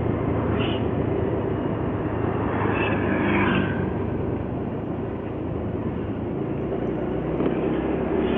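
Motorcycle being ridden along a street: a steady low engine hum under a constant rush of wind and road noise.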